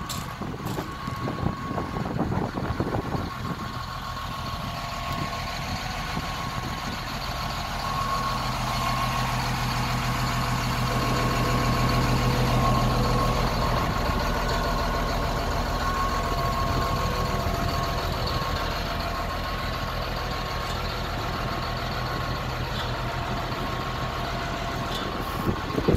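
Caterpillar 950 wheel loader's diesel engine running steadily at idle, growing louder toward the middle, with a constant high whine over it.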